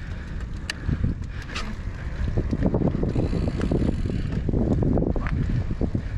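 Wind buffeting the microphone of a GoPro Hero 8 Black on a moving mountain bike, over the rumble of the tyres on the road. A few sharp clicks and rattles come from the Polygon Siskiu D5 bike.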